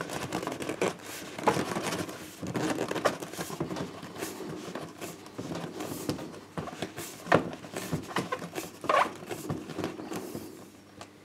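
40 mm plastic waste pipe being pushed into the lubricated rubber adapter of a boss strap connector on a 110 mm soil pipe: irregular scraping and rubbing, with scattered sharp knocks, the loudest about a second and a half in, past seven seconds and about nine seconds in.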